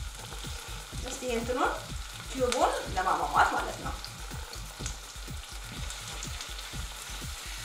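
Eggplant sauce sizzling in a nonstick frying pan while a wooden spatula stirs and scrapes through it. A few brief voice-like sounds come between about one and three and a half seconds in.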